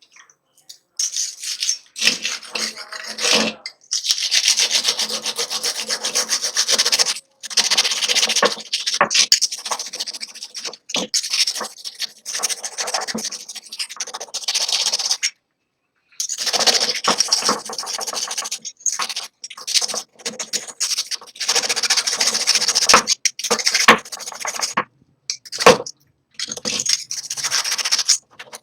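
Hand abrasion of an antique hand saw's steel blade: fast, scratchy scrubbing strokes in long spells that break off suddenly several times.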